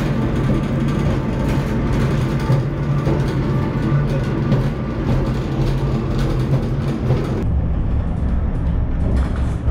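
Babbacombe Cliff Railway funicular car running down its rails, a steady rumble and hum. About three-quarters of the way in the hiss drops away and the rumble deepens.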